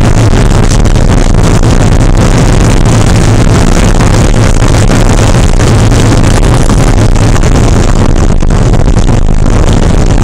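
Porsche 968's four-cylinder engine running steadily under race load. It is loud and continuous, driving the recording to its limit.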